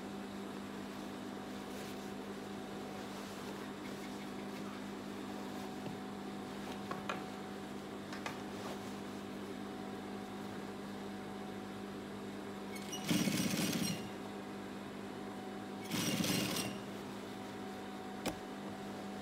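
Gemsy industrial lockstitch sewing machine with its motor humming steadily. It stitches through denim in two short runs, one about a second long and one a little shorter, followed by a sharp click.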